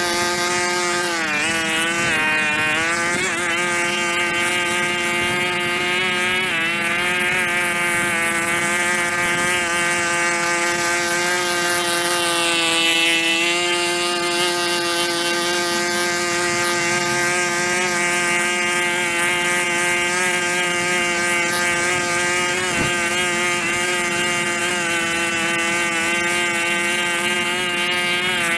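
Small petrol engine of a powered outdoor tool running steadily at high speed, with a few brief dips in pitch near the start.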